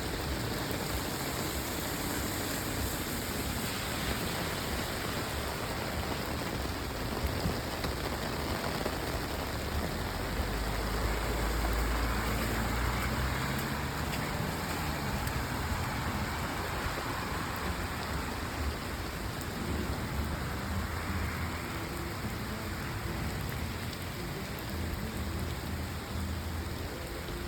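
Steady rain falling. A low rumble swells and fades for a few seconds about ten seconds in.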